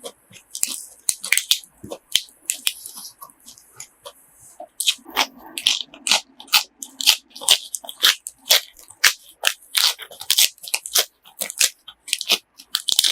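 A person chewing and biting crunchy food close to the microphone: a quick, irregular run of crunches that grows denser about five seconds in.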